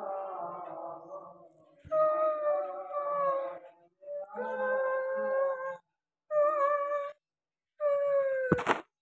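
Long, drawn-out howls, about five in a row, each held on a steady or slightly falling pitch for one to two seconds, with a sharp click near the end.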